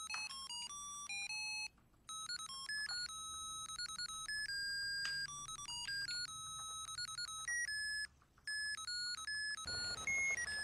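Musical Christmas-light controller's melody chip playing a tinny electronic tune of beeping notes through its small piezo buzzer, with two short breaks where the tune stops and restarts. A brief rustle of handling comes near the end.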